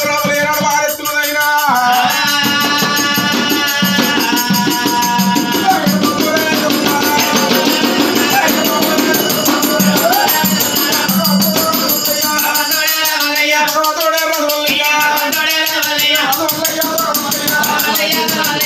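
Oggu katha devotional folk singing with a fast, steady jingling rhythm of handheld percussion and a small hand drum.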